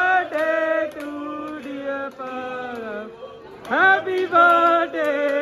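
Voices singing a tune in long held notes, with hand clapping along.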